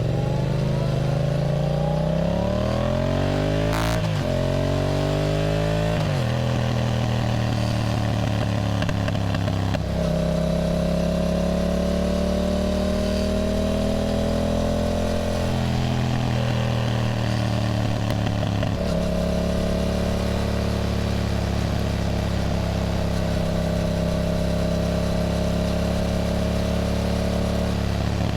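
Yamaha MT-07's parallel-twin engine under way. Its pitch climbs and then drops several times in the first twenty seconds as it is shifted up through the gears, then holds a steady cruising note.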